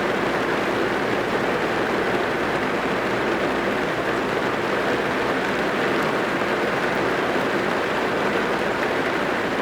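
Rain drumming steadily on a car's roof and windows, heard from inside the cabin as a dense, even patter.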